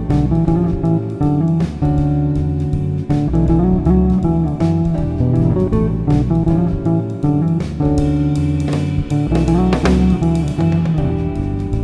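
Background music led by plucked guitar over a bass line.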